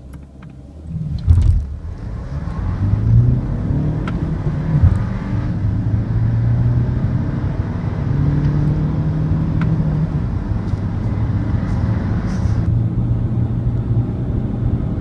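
Car engine heard from inside the cabin while accelerating hard from a standstill. There is a thump about a second in.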